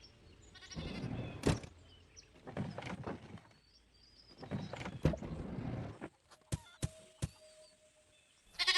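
A goat bleating three times, in hoarse, drawn-out calls about two seconds apart, followed by a few faint clicks.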